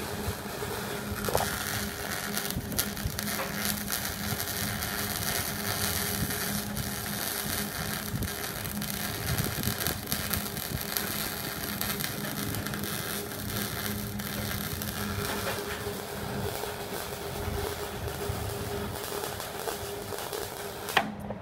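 Three-phase transformer MIG welder arc crackling steadily while welding, over the machine's steady transformer hum; the machine switches its contactor duty through a triac board. Near the end a sharp click and the crackle stops.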